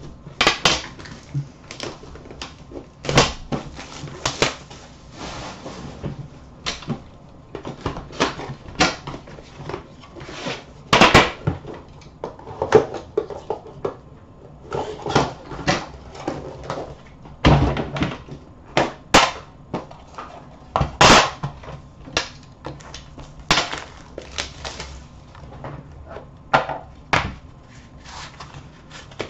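Handling of a sealed hockey-card tin and its inner cardboard box. Plastic wrap crinkles and is cut with a knife, and the metal tin, its lid and the box knock and click irregularly as they are opened and set down on the counter.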